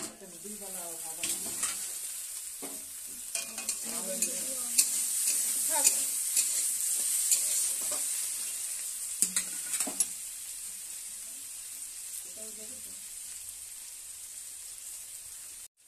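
Mixed vegetables sizzling in a steel kadai while a spatula stirs and scrapes them, with sharp clicks of the spatula against the pan. The sizzle is loudest in the middle and eases off after about ten seconds.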